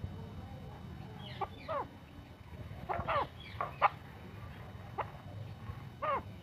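Male chukar partridge calling: short, sharp notes that drop steeply in pitch, a pair about a second and a half in, a quick run of four around three seconds in, then single notes.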